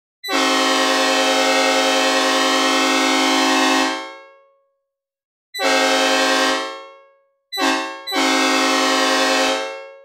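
Synthesized recreation of a Nathan P5 five-chime locomotive air horn (old cast), played dry without reverb. It sounds a steady chord in four blasts: a long one of about four seconds, one of about a second, a short toot, and a final blast of about a second and a half.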